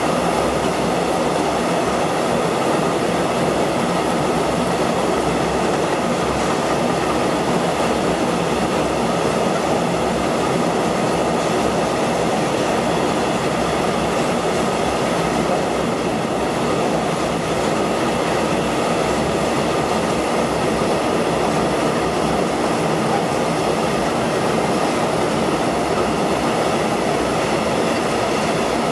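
Long freight train of high-sided open goods wagons rolling steadily past, the steel wheels running over the rails.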